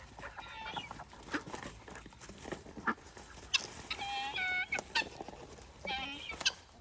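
Domestic poultry calling, with a few short calls about halfway through and again near the end, among scattered clicks and knocks.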